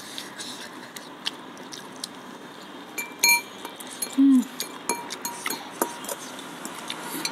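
Metal spoons and a fork clinking and scraping against glass bowls while eating, with one brief ringing clink about three seconds in. A short falling vocal 'mm' sounds just after four seconds.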